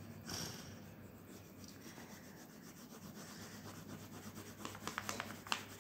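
Crayon rubbing on paper as an area is shaded in purple, faint, with a run of sharper scratchy strokes near the end.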